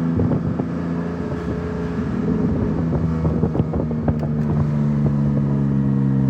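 Car engine running steadily as the car drives along, with scattered light clicks and ticks over it.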